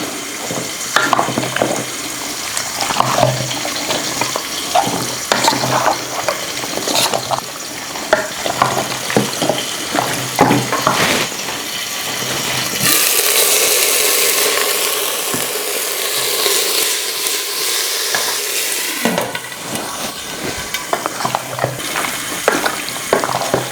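Stirring in a pot, with repeated clicks and scrapes of a utensil, over the sizzle of onions and whole spices frying in oil. About halfway through, a louder steady hiss rises for some six seconds, then drops away.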